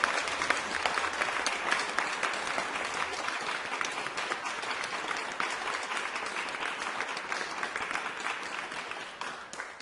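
Crowd applauding, a dense wash of many hands clapping, which begins to fade away in the last couple of seconds.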